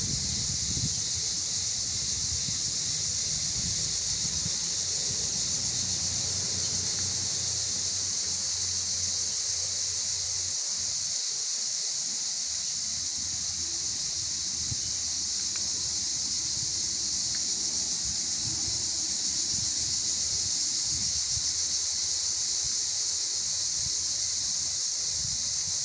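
Steady high-pitched buzzing of insects, unchanging in pitch and level. A faint low rumble lies under it for roughly the first ten seconds.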